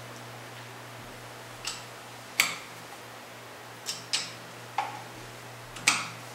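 Six sharp metal clicks at uneven intervals, from adjustment work on the bore alignment fixture holding the rifle receiver as its rotational adjustment is set, over a steady low hum.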